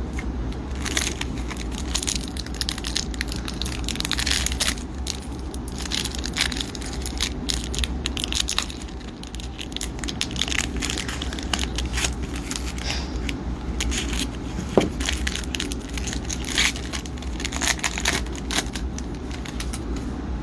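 Foil hockey-card pack wrappers crinkling and tearing, with cards handled, as retail packs are opened; a steady low hum runs underneath.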